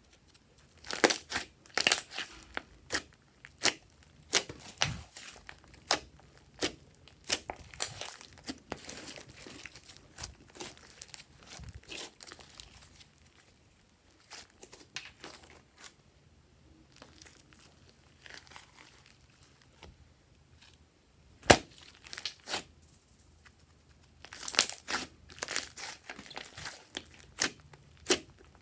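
Glossy slime being squished and worked by hand, giving irregular sticky clicks, pops and crackles, thinner in the middle and bunched more densely near the end.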